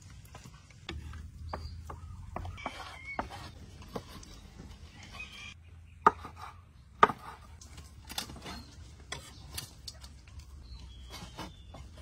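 Kitchen knife chopping roasted pig's face meat on a wooden cutting board: scattered knocks, with two sharp strikes about six and seven seconds in.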